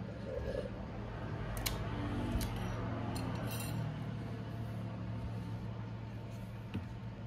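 Steady low hum with a few light clinks and taps, about a second and a half to three and a half seconds in.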